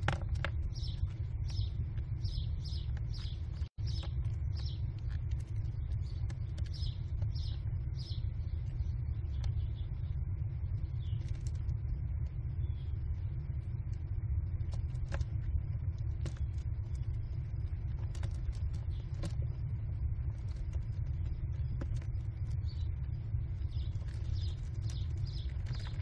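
American kestrel nestlings calling in quick runs of short, high, repeated notes: a long run at the start, another a few seconds later and one near the end. A steady low rumble runs underneath throughout.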